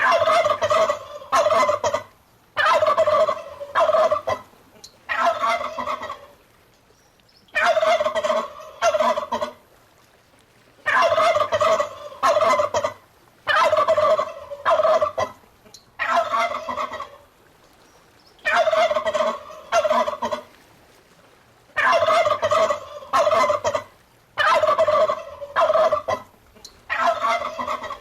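Domestic turkey gobbling over and over, a rapid rattling call of a second or two repeated about every two to three seconds with short pauses between.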